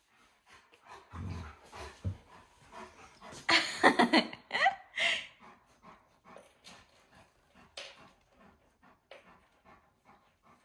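Alaskan malamute giving a brief, loud vocal outburst with a sliding pitch near the middle, after a couple of dull thumps, then panting quickly and rhythmically, about three breaths a second.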